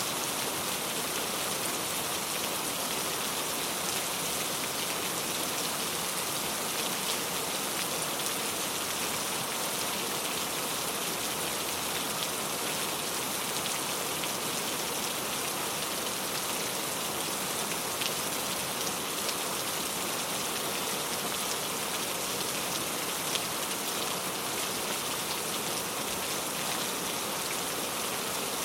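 Steady rain falling, a constant hiss with fine scattered drop ticks.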